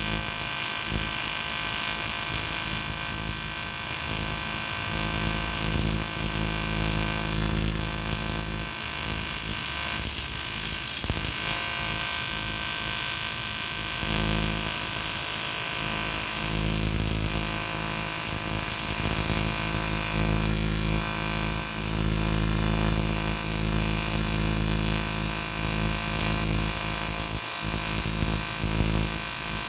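AC TIG welding arc on an aluminium motorcycle cylinder block: a steady electric buzz with a high hiss. The low hum thins out for a few seconds near the middle, then comes back.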